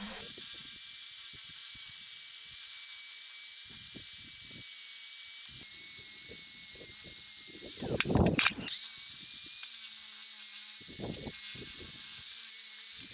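Fast-forwarded sound of old paint being stripped from a car's brake booster: a steady hiss and a high whine, with scattered light knocks and a louder burst about eight seconds in.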